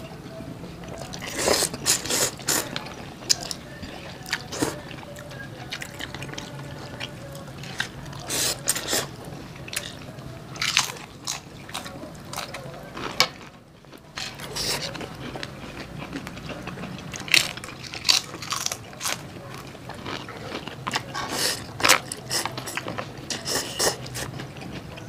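Close-up eating sounds: irregular crunchy bites and chewing of fried chicken and curry instant noodles, over a steady low hum. The sound dips briefly about halfway.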